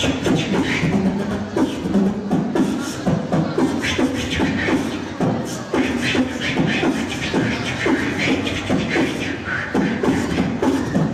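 Beatboxing: a steady beat of low vocal kick drums with sharp clicks and hissed hi-hats over them.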